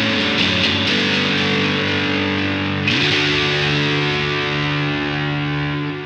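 Electric guitar played through a Southampton Pedals Indie Dream pedal with its fuzzy drive engaged: sustained, saturated chords, with a new chord struck about three seconds in on a quick upward slide and left to ring and fade.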